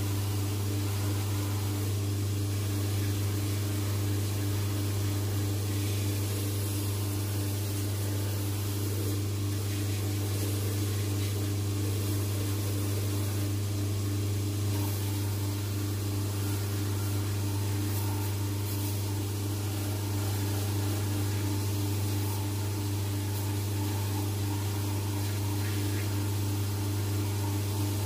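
Cobbler's shoe finishing machine running with a steady low hum from its motor and spinning wheels, while the old sole is held against a wheel to break its welt stitches.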